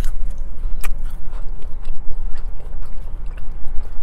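Close-miked chewing of a waffle fry: wet mouth sounds with scattered small clicks over a low rumble.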